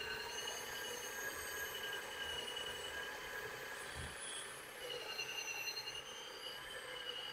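Ninja food processor running with its beater blade shredding and blending meat for a dumpling filling: a steady motor whine whose high tones waver slightly in pitch.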